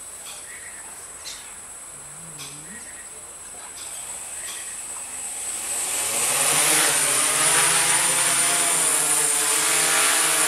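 Small electric multirotor drone spinning up its motors and propellers about four seconds in, rising in pitch and loudness to a steady whir as it lifts off and hovers.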